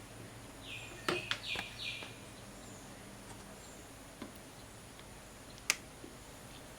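Potato strips being laid by hand into a buttered pan: a few light clicks and short scrapes about a second in, then scattered soft taps and one sharper click near the six-second mark.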